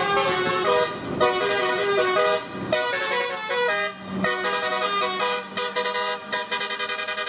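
Bus 'telolet' horn, a multi-tone air horn, playing a melody of held notes that step up and down in pitch with a few short breaks. In the last couple of seconds the notes pulse rapidly.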